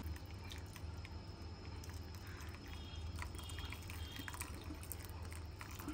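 Jelly liquid poured in a thin stream from a steel pan into a glass bowl of fruit, trickling faintly, with a few light clicks.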